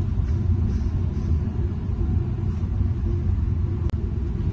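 Steady low background rumble, with a single sharp click near the end.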